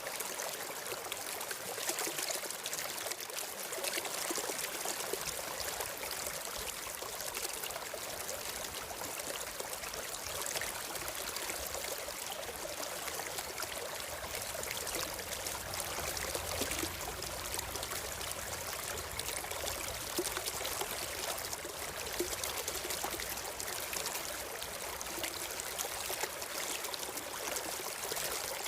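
A stream flowing steadily, a constant rush of running water.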